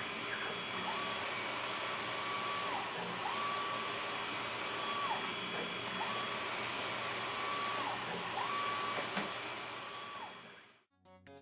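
PolyJet 3D printer running a build: a steady fan and machine hum, with a motor whine that rises, holds for about a second and drops again, repeating roughly every two seconds. The sound fades out near the end.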